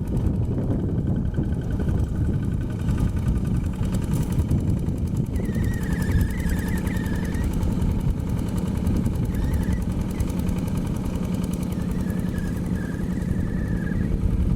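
Single-cylinder Yanmar diesel engine of a Quick G1000 two-wheel hand tractor running steadily while the tractor ploughs topsoil.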